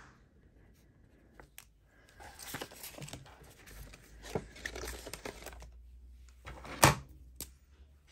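Paper envelopes and cash being handled, with a stretch of rustling and light clicks and one sharp knock a little before the end.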